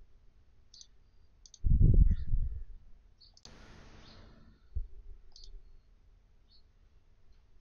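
Computer mouse clicking a few times, with one loud, dull, low thump about two seconds in. Near the middle there is a short hiss of about a second.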